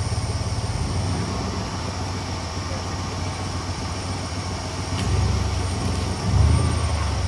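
Off-road 4x4's engine running with a low, pulsing rumble, revved up twice in the last couple of seconds.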